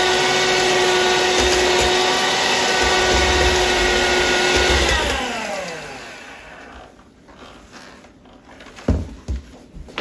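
Electric hand mixer whirring steadily with its beaters in thick brownie batter in a glass bowl. About five seconds in it is switched off and its whine falls in pitch as the motor winds down, and near the end come a couple of sharp knocks.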